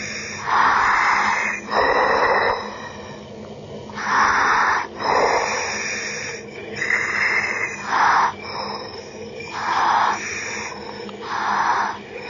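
A diver breathing through his breathing apparatus underwater: regular hissing rushes of breath in and out, a pair about every three seconds, four breaths in all.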